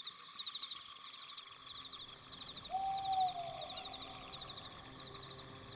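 Night-time nature ambience: crickets chirping in short rapid trills about twice a second, over a steady hiss. About three seconds in, a single clear tone slides downward in pitch for about a second.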